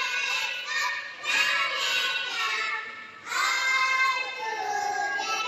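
Young children singing, with some notes held long.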